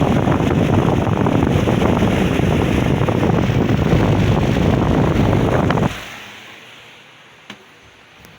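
Agratto Ventimais electric fan blowing, its airflow rushing loudly and steadily against the microphone. About six seconds in the rush cuts off abruptly and a faint sound dies away, with a couple of small clicks after.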